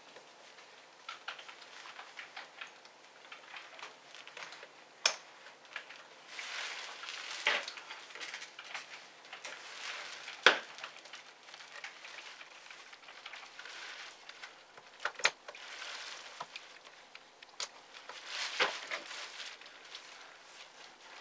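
Laptop parts being handled and fitted by hand: a few sharp plastic clicks and taps with soft rustling between, as ribbon cables and a small circuit board are seated into the laptop chassis.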